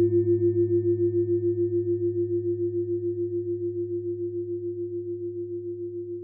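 The last note of the closing music ringing out: one sustained, bell-like tone over a low hum, pulsing about five times a second and slowly fading.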